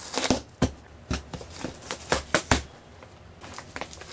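Screwdriver prying and ripping metal staples out of a cardboard shipping box: an irregular run of sharp clicks and scrapes, loudest near the start and about two and a half seconds in.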